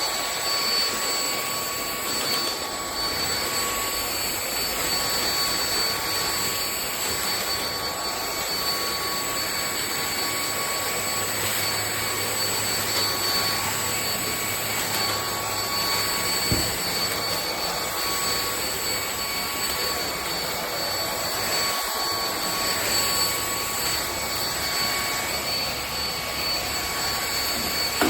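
Lubluelu cordless stick vacuum running steadily: the brushless motor's high, even whine over rushing air, with a single light knock about two-thirds of the way through.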